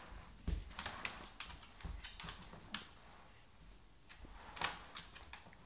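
A plastic laundry basket being pushed across a hardwood floor: irregular clicks, knocks and creaks of the plastic, most of them in the first three seconds and one more past the middle.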